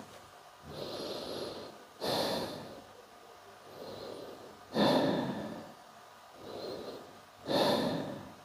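Slow, audible human breathing close to the microphone: three breath cycles, each a soft inhale followed by a louder exhale, about one breath every two and a half to three seconds, during a held yoga pose.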